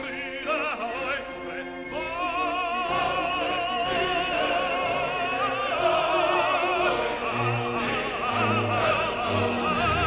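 Background music: a classical piece with an operatic voice singing with strong vibrato over held orchestral notes.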